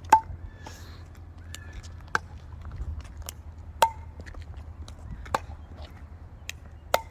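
Solid wood pickleball paddles hitting a pickleball back and forth in a rally: five sharp pocks about one and a half seconds apart, the first the loudest, with fainter clicks in between.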